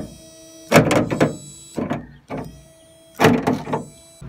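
Power window motor and regulator in a 1989 Ford E-350 van door, run from the switch in several short bursts: loud surges over a steady motor whine. The freshly cleaned and reassembled regulator is working without trouble.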